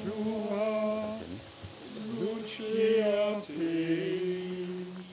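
Men's voices singing slow Latin plainchant (Gregorian chant), with long held notes that move in steps; the last note is held for about a second and a half before the singing stops near the end.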